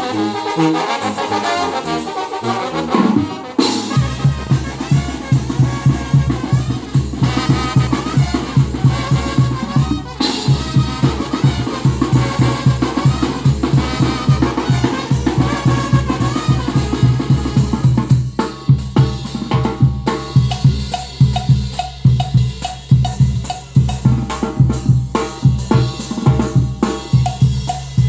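Brass band playing a son: the horns finish a phrase in the first few seconds, then the drums take over with a fast, steady beat over a pulsing low bass line.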